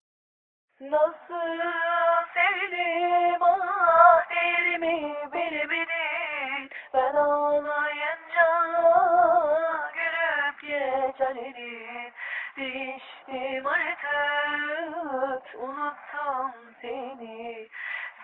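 Music: a voice singing a slow melody with wavering, ornamented pitch in arabesk style, starting about a second in.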